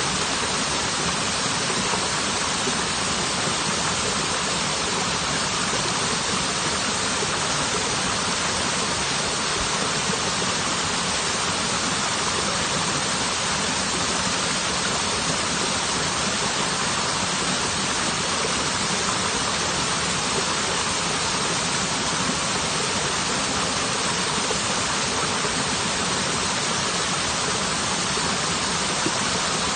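Waterfall: a steady, unbroken rush of falling water, even hiss with no changes.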